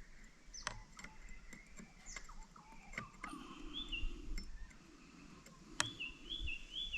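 Small birds chirping in short repeated phrases, with a few separate sharp clicks of metal tools and hands on the chainsaw while its chain tension is adjusted.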